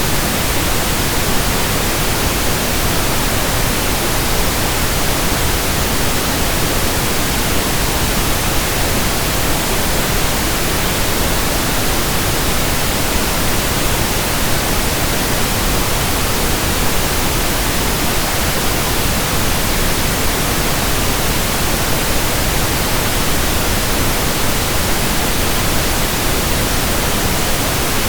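Steady pink noise: an even, unchanging hiss with no rhythm or change in level.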